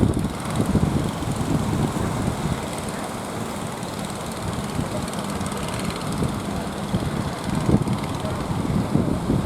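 A boat's engine running steadily under wind and water noise as the boat pushes through sea waves, with a few heavier surges.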